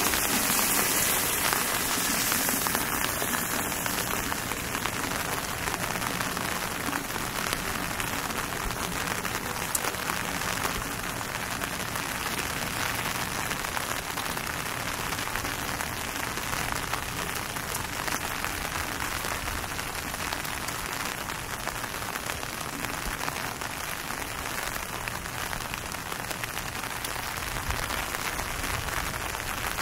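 Steady rain falling on hard surfaces, an even hiss of drops, a little louder in the first few seconds.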